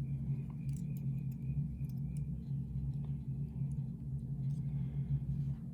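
A steady low hum with a few faint, scattered small metal ticks and taps from a lock pick probing the emptied pin chamber of a lock cylinder.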